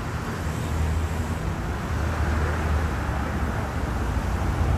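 Steady city street traffic noise with a deep low rumble.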